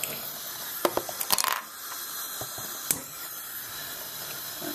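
Stainless steel saucepan knocking against the metal grate of a gas hob as it is moved into place: a few sharp clicks, a quick clatter about a second and a half in, and one more knock near three seconds, over a steady hiss.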